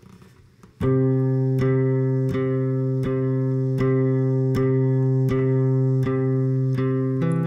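Acoustic guitar beginning to play about a second in: one chord strummed in a steady rhythm, roughly one strum every three-quarters of a second, moving to a new chord near the end.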